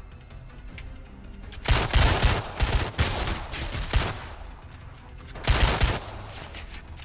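Automatic gunfire in two bursts: a long volley of rapid shots and bullet impacts starting a little under two seconds in, and a shorter one around five and a half seconds in, over a quieter film score.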